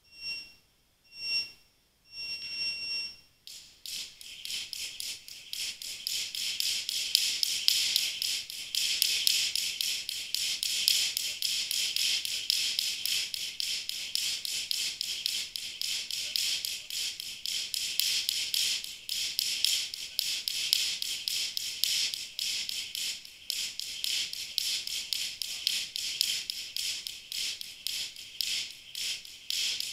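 A gym interval timer beeps a countdown: two short beeps, then a longer start beep ending about three seconds in. Then a jump rope whirs and ticks on the floor in a fast, steady rhythm as the athlete jumps continuously.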